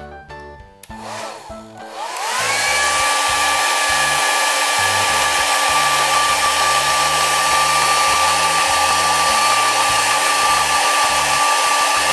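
Hand-held hair dryer switched on about a second in, its motor whine rising in pitch as it spins up. It then runs steadily, a loud rush of air with a steady whine.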